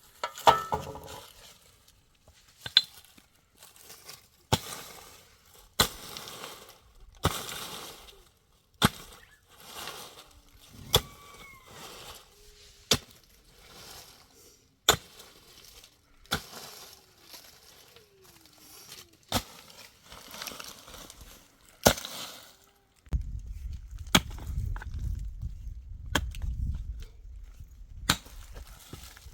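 Repeated sharp strikes, one about every one and a half to two seconds, with scraping or rustling between them. About two-thirds of the way through, a steady low rumble sets in under the strikes.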